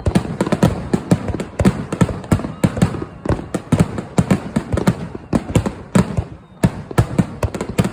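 Aerial fireworks going off in a rapid barrage: many sharp bangs and crackles, several a second, overlapping one another.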